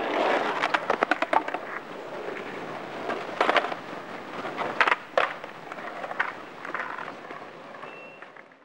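Irregular sharp clicks and crackles over a steady rushing noise, with a brief thin high tone near the end; it all cuts off abruptly.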